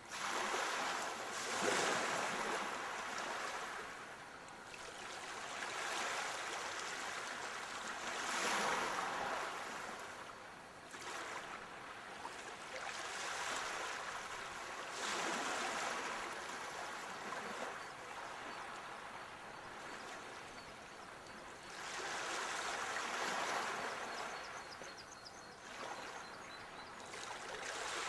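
Sea waves breaking and washing up the shore, the surf swelling and fading every five to seven seconds.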